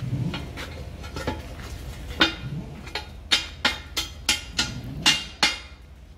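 Hammer blows on steel, each strike ringing sharply. One blow comes about two seconds in, then a steady run of about three to four blows a second, over a low steady hum.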